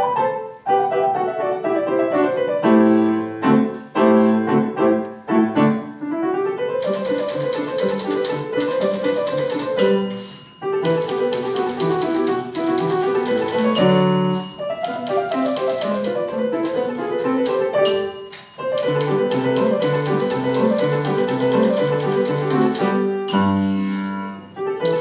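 Piano-led instrumental music with a steady run of notes. From about seven seconds in, a fast, dense crisp ticking layer joins it, and the music pauses briefly three times.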